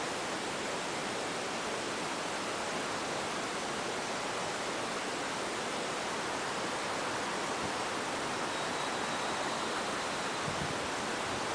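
Steady outdoor background hiss with no train horn sounding, a pause between horn blasts. A faint, thin high tone lasts for about a second and a half two thirds of the way through.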